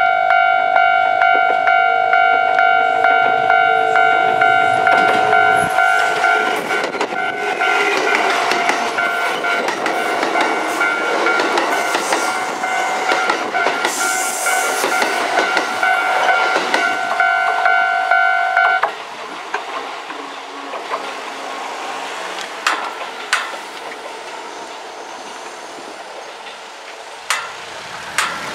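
A level-crossing warning bell rings in quick, even pulses while a Kintetsu express of 2800-series and 1253-series electric cars passes, its wheels rumbling and clattering over the rail joints. The bell cuts off suddenly about 19 seconds in, leaving the fading run of the train and a few sharp clicks near the end.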